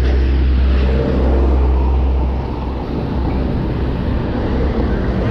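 Wind rumbling on the microphone of a moving bicycle rider, over road and traffic noise. The low rumble eases a little past two seconds in.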